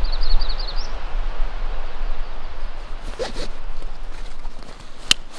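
Steady outdoor rushing noise with a low rumble on the microphone; a songbird gives a quick trill of rapid high notes at the start. A hand handling a backpack's cords makes light rustling and a few clicks, with one sharp click about five seconds in.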